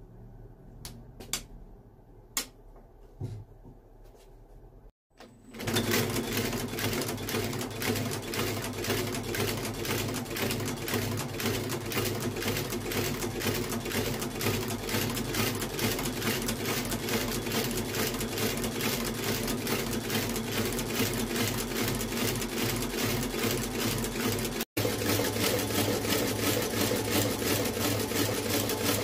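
Shoe sole stitching machine running, sewing a new leather sole around the shoe's edge: a loud, rapid, even mechanical clatter of stitches, which drops out for an instant near the end. Before it starts there are a few light clicks of the shoe being set in the machine.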